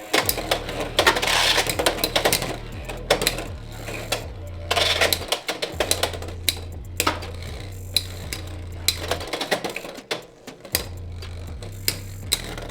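Two Beyblade X spinning tops, Wizard Rod blades, battling in a plastic stadium: quick, irregular clicking and knocking as they collide and scrape, over background music with a stepping bass line.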